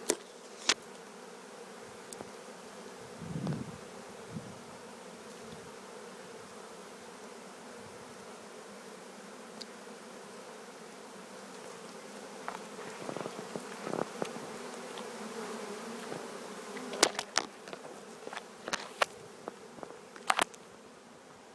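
A swarm of honey bees buzzing steadily, a continuous hum. A few sharp knocks or clicks cut through it just after the start and several more near the end.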